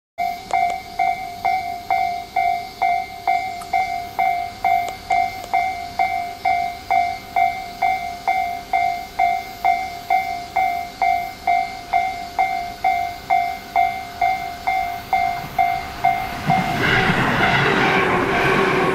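Japanese railway level-crossing warning bell ringing in a steady ding-ding, a little over two strokes a second. In the last two seconds an electric train arrives at the crossing, and its steady rush of wheel and motor noise covers the bell.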